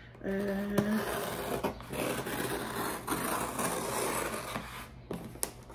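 Cardboard box being opened by hand: cardboard rubbing and scraping, with a few small knocks.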